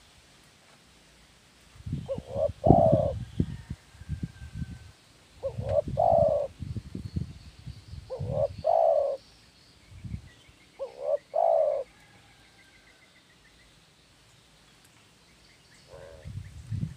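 Spotted dove cooing: four two-note coos, each a short note then a longer one, about three seconds apart, then a pause and a faint start of another near the end. Low rumbling noise lies under the first three coos, and small birds chirp faintly in the background.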